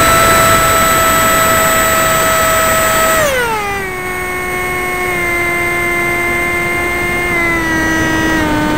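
Talon RC plane's motor and propeller heard from a camera on its tail: a steady high whine that glides down in pitch about three seconds in as the throttle is eased back, then runs on lower, dropping a little further in small steps.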